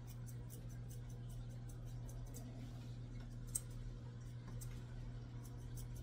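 Grooming shears snipping repeatedly through a schnauzer's facial hair: clusters of light, crisp snips, with one louder click about three and a half seconds in, over a steady low hum.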